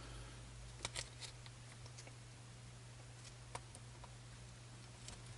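Faint, scattered clicks of black plastic RC-buggy chassis parts being handled and fitted together in gloved hands, over a steady low hum.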